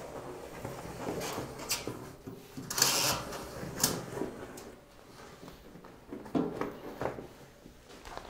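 Rubber inner tube being pulled out of a fat bike tyre by gloved hands: rubber rubbing and scraping against the tyre and rim, with scattered small knocks and a louder rustle about three seconds in.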